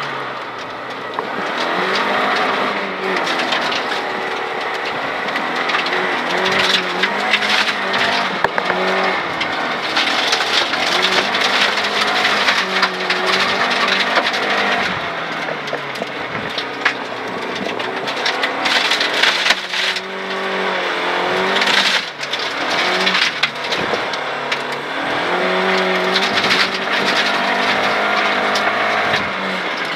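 Rally car engine at full throttle heard from inside the cabin, climbing in pitch and dropping back at each gear change, with gravel and stones rattling against the underbody.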